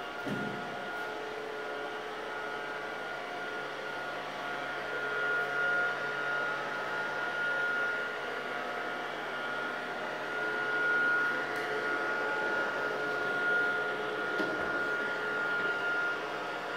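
Air hover soccer disc's small electric fan running steadily as the disc floats on its cushion of air: a constant whirring hum with a high whine.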